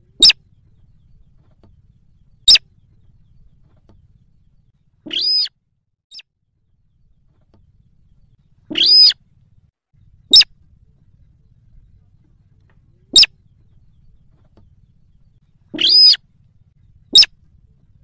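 Slaty-breasted rail calling: brief, high-pitched calls repeated every few seconds, with three longer calls of about half a second among them.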